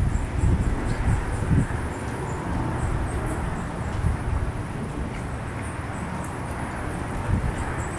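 Faint, high-pitched chittering of bats roosting in a building, over a steady low outdoor rumble.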